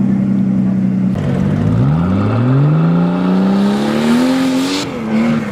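Off-road 4x4's engine running steadily, then dropping briefly and revving up, its pitch climbing for about three seconds as the truck accelerates. A short burst of hiss comes near the end.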